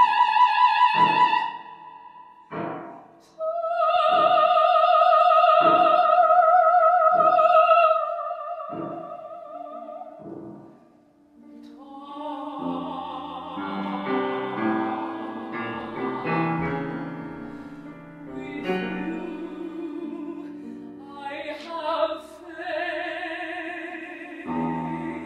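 Operatic soprano singing with piano accompaniment. The first half has long, high held notes with wide vibrato, over struck piano chords. After that comes a quieter, busier piano passage, and her singing returns near the end.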